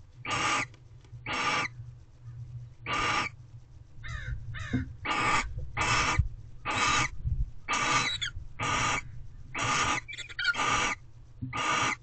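Barn owls giving repeated raspy hissing calls, each about half a second long, about one a second, with a few short squeaky chirps sliding down in pitch between them.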